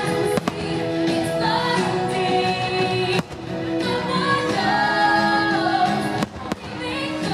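Fireworks-show soundtrack: music with singing, held notes over a full accompaniment, broken by a few brief sharp clicks.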